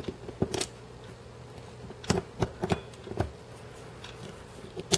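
Sharp little metal clicks and taps of a steel punch working against the frame of a Martian Commercial 6.35mm pistol, as a spring-loaded part is held down and slid back into place during reassembly. The clicks come one by one and in quick pairs: a few about half a second in, a cluster between two and three seconds in, and one near the end.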